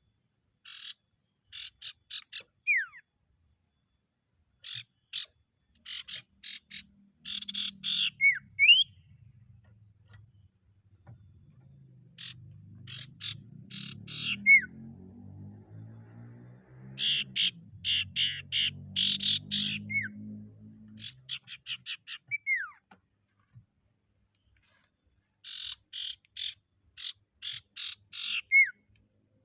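Common iora (sirtu) singing: phrases of rapid repeated notes, each ending in a falling whistle, repeated every few seconds. A low pulsing drone sits underneath through the middle.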